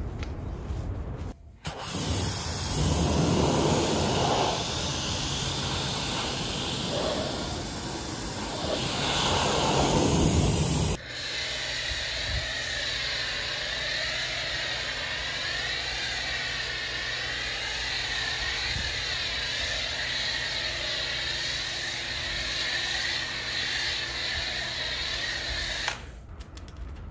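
Portable electric pressure washer running and spraying through a foam cannon: a steady motor hum under the hiss of the spray. About eleven seconds in the sound turns into a steadier hiss with a wavering high whine, and it cuts off near the end.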